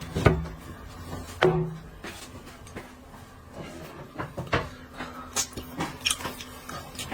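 Scattered light knocks and clicks of things being handled, with two louder thumps about a second apart near the start.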